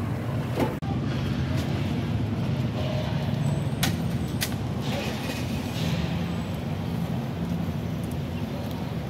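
Street traffic with a vehicle engine running steadily close by, a low even hum, broken by a few short sharp clicks.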